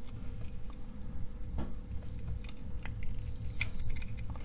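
Handling noise of a small plastic fidget spinner as parts are pushed into its centre bearing: a few faint, sparse plastic clicks over a steady low rumble and faint hum.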